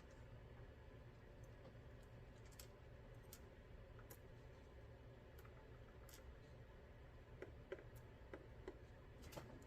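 Faint, scattered light clicks and ticks of small metal lock parts being handled as a driver pin and spring are worked out of a Mul-T-Lock MT5+ lock housing, a few more of them near the end.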